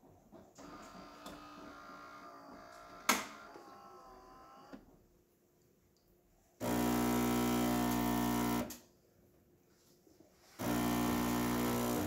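Gaggia Cadorna Plus super-automatic espresso machine brewing a shot: its brew unit whirs for a few seconds, with one sharp click about three seconds in. Then the pump hums loudly for about two seconds, stops, and starts again near the end as the espresso pours.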